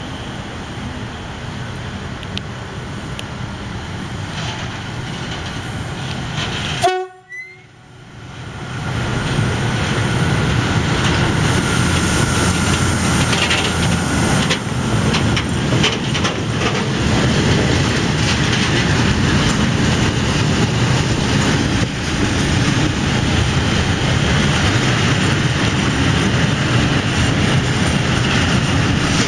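SNCF BB 26000 electric locomotive approaching and passing close with a long freight train of cereal hopper wagons: a rising rumble, a short horn blast about seven seconds in, then the steady loud rumble and clatter of the wagons' wheels on the rails.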